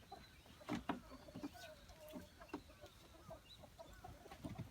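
Faint clucking of fowl, with a few short knocks, the loudest a little under a second in.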